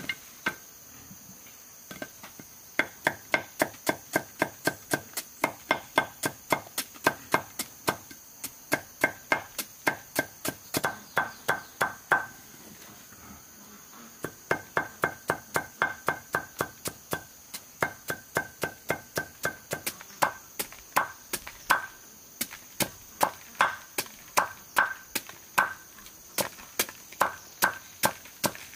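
Rapid, even chopping with a hand tool, about two to three strikes a second, each strike ringing briefly, with a pause of about two seconds midway.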